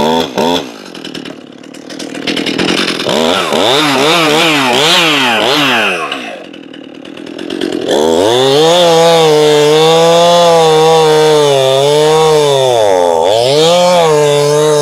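Stihl MS271 Farmboss two-stroke chainsaw revved in a string of quick throttle blips, then held at full throttle from about eight seconds in as it rips lengthwise into a log, sagging briefly in pitch near the end. The owner says this 50cc saw is underpowered and bogs down in noodle cuts, without the power to clear the chips.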